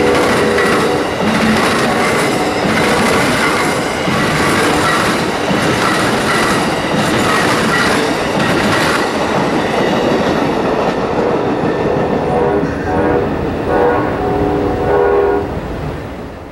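Amtrak passenger cars rolling past at speed, a steady rush of wheels clicking over the rail joints. The locomotive's horn sounds briefly at the start and again for a couple of seconds near the end, and the train noise drops away in the last second as the tail car clears.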